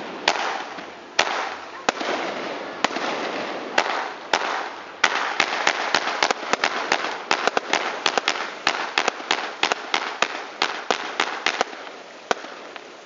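Fireworks going off: sharp bangs over a continuous crackle. The bangs come thick and fast from about five seconds in, then thin out near the end.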